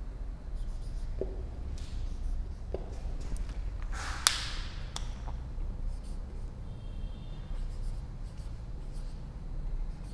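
Marker pen writing on a whiteboard: short scratchy strokes and light taps as numbers are written. There is one sharp click about four seconds in, over a steady low hum.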